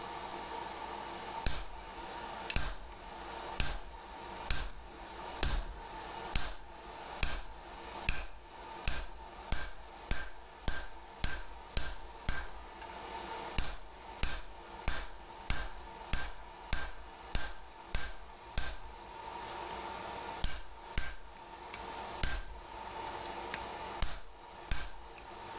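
Blacksmith's hammer striking hot steel on an anvil in a steady run of blows, each with a short metallic ring. The blows come about once a second at first, quicken to nearly two a second, and pause twice near the end.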